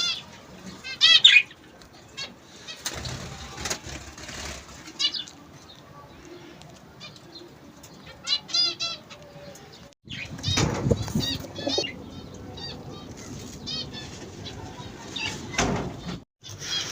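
Small ornamental cage birds chirping in quick series of high calls, with wings flapping now and then.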